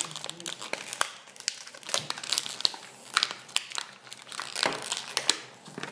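Plastic packaging crinkling and crackling as it is handled, a quick irregular run of sharp crackles.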